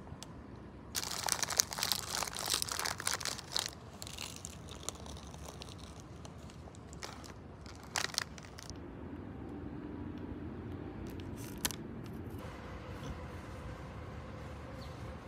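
Crinkling and crunching from a paper-wrapped, breaded fried snack being handled and eaten: a dense burst of about three seconds starting about a second in, then a few short crackles.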